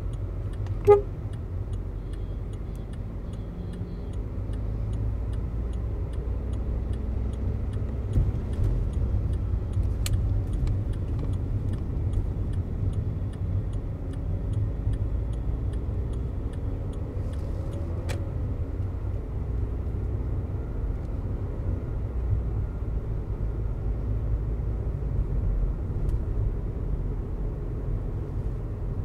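In-cabin sound of a Volkswagen Vento TSI's turbocharged petrol engine and tyres on the move, a steady low rumble. A short, loud horn toot comes about a second in.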